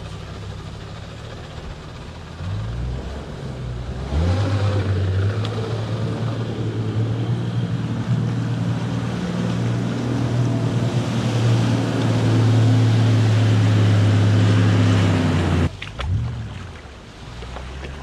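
A 4WD engine pulls hard through a creek crossing with water rushing and splashing around it. The engine note climbs over the first few seconds, holds steady and loud, then cuts off abruptly near the end.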